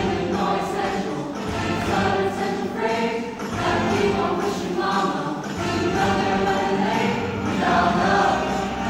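Mixed-voice high school show choir singing a rock song, with several voice parts at once.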